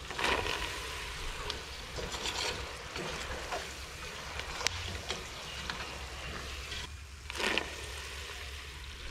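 Boondi frying in hot oil in an aluminium pot, a steady sizzle, with a few sharp clinks and scrapes of a wire skimmer against the pot as the fried boondi are lifted out.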